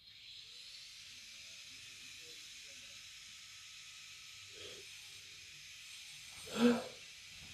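A person with a head cold sneezing: a faint breathy catch, then about two seconds later one short, loud sneeze near the end, over a steady background hiss.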